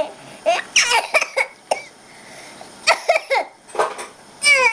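A baby laughing in a run of short, high-pitched bursts and squeals, with a man's sneeze among them.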